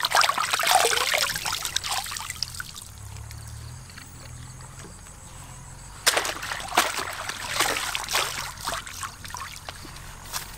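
Water splashing and trickling, dying down after about two seconds and then starting again suddenly with a run of splashes about six seconds in.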